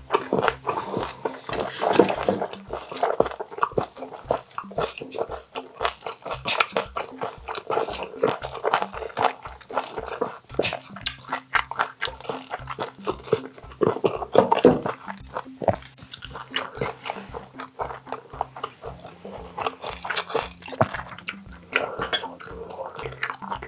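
Close-up eating sounds of boiled baby octopus with roe: wet chewing, smacking and quick sharp clicks, over background music with a steady beat.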